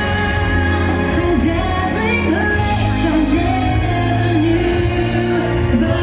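Pop-style show music with a singing voice over a steady musical backing, played loudly.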